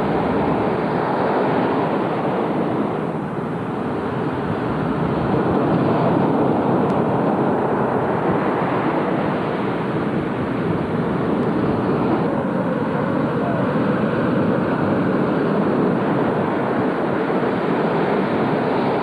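Ocean surf breaking on the beach: a steady rushing wash of noise with no distinct individual sounds.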